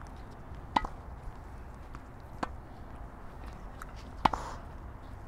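Tennis balls being hit with racquets and bouncing during a forehand drill: three sharp pops about a second and a half apart, the loudest about four seconds in, with a few fainter ticks between.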